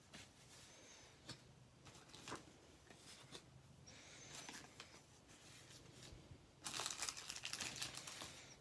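Paper sticker sheets and plastic packaging rustling and crinkling as they are handled and laid down on a table, with a few light taps; a longer, louder crinkle near the end.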